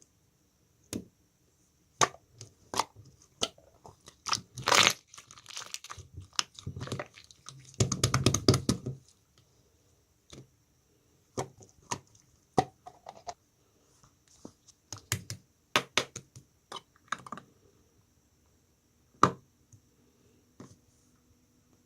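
Slime being squeezed and stretched by hand, giving irregular sharp clicking pops and crackles with quiet gaps between, and a dense run of crackling about eight seconds in.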